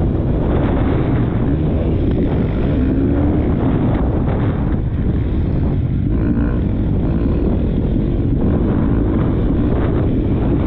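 Motocross bike engine revving up and down as it is ridden hard, heard from a helmet-mounted camera with heavy wind buffeting on the microphone.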